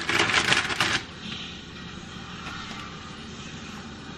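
Crinkly rustling of the wrapping as provolone cheese slices are peeled off, which stops suddenly about a second in. After it comes a steady low background hum.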